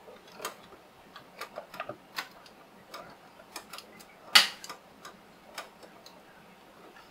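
Small plastic and metal model-kit parts being handled and fitted, giving a string of irregular light clicks and taps, with one sharp, much louder click a little past the middle. These are the sounds of a clear plastic rear side window being seated into a model car body.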